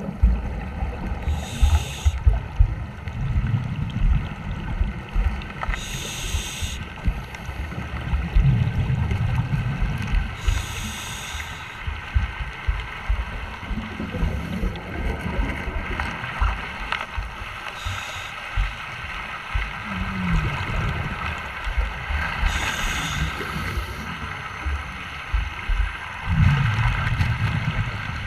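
Underwater scuba breathing: bursts of exhaled regulator bubbles about every four to five seconds, over a continuous low bubbling rumble and knocks.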